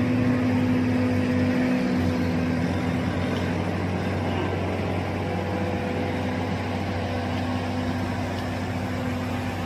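An engine running steadily, with a steady low hum.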